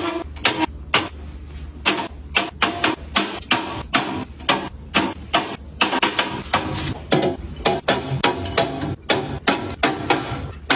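Quick, irregular clicks and knocks of food packages and storage containers being handled and set into a refrigerator, several a second, over a steady low hum.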